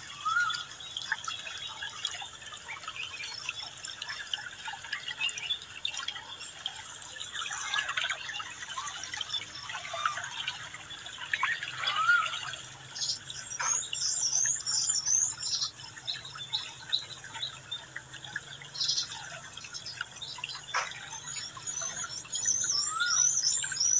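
Outdoor ambience of birds chirping, with quick runs of high twittering about halfway through and again near the end, a few short rising calls, and scattered small clicks.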